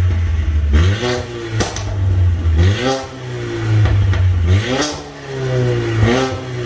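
Mercedes-AMG CLA45's turbocharged four-cylinder, with catless downpipe and stage 2 tune, revved in about four quick blips, the revs falling away after each one. Pops and crackles on the overrun, tuned in for pops and bangs, with a sharp crack about a second and a half in and another about five seconds in.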